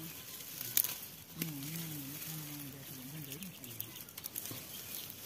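Dry plant stalks rustling and crackling as they are pulled up and handled, with a few sharp snaps. A low, wavering voice-like hum lasts about two seconds in the middle.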